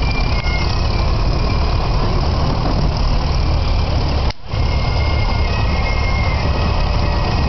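Vintage tractor engines running as they drive past, the sound cutting out for an instant a little past halfway.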